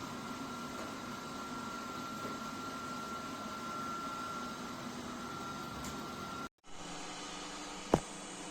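Ultenic D10 robot vacuum running with a steady fan noise and a thin whine. It cuts out briefly about six and a half seconds in, resumes, and a single sharp click sounds near the end.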